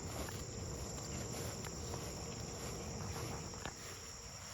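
Steady high-pitched chorus of insects, with a few faint ticks and a low rumble of wind or handling noise.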